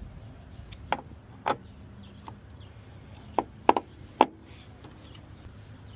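A new windshield wiper arm being fitted into position on its pivot: a series of about seven short, sharp clicks and knocks, irregularly spaced, with a quick cluster in the middle.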